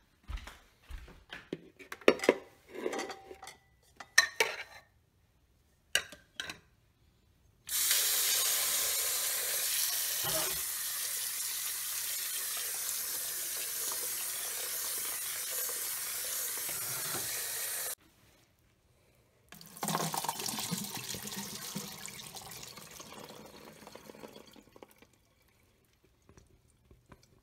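Handling knocks and rattles, then a kitchen faucet running steadily onto blueberries in a plastic bowl for about ten seconds before it cuts off suddenly. The berries and water are then tipped out into a plastic colander, a splashing pour that fades out.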